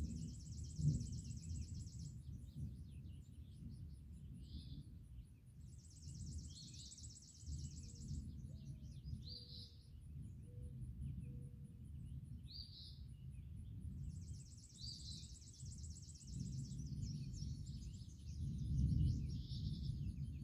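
Distant thunder rumbling low and continuously, swelling near the end. Over it, a high dry trill comes three times, each about two seconds long, with scattered bird chirps.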